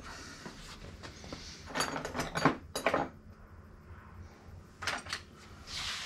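Hand tools clinking and knocking on metal while a bicycle's bottom bracket and crank are loosened for adjustment: a run of sharp clanks about two to three seconds in, and a couple more about five seconds in.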